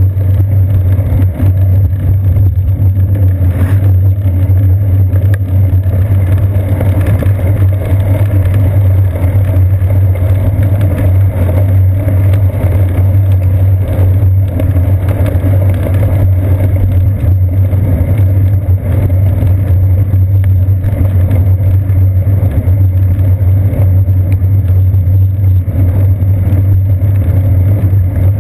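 Steady loud low rumble of wind and road vibration picked up by a seat-post-mounted GoPro Hero 2 in its housing as the bicycle rides along wet pavement.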